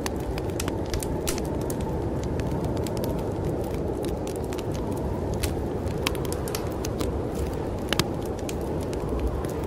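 Wood fire crackling, with irregular sharp pops, the loudest about eight seconds in, over a steady low rush of storm wind.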